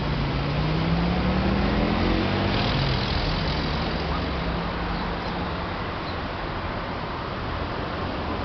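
Road traffic running steadily, with one vehicle's engine rising in pitch as it speeds up over the first two or three seconds.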